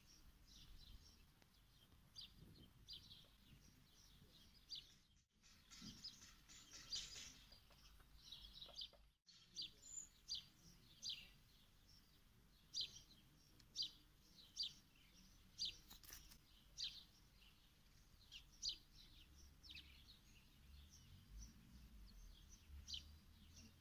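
A small bird chirping repeatedly over faint outdoor background noise: short, high chirps about once a second, with the sound briefly cutting out twice in the first half.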